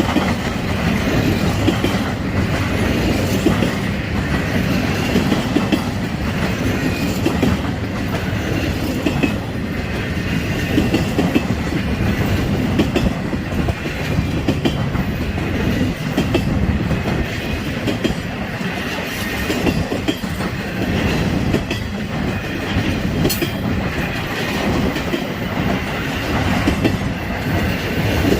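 Freight train rolling past steadily, its cars' wheels clattering over the rails, with intermodal spine cars in the consist.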